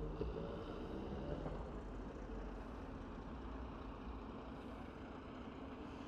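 Town-centre road traffic: cars and a double-decker bus running past, a steady low rumble.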